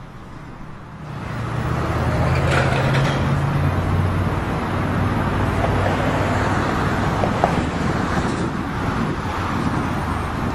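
Motor vehicle engine running close by with steady traffic noise, starting about a second in and holding steady.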